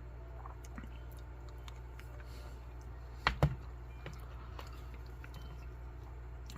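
A person chewing food, faint with small scattered clicks over a steady low hum, and two sharp knocks close together a little over three seconds in.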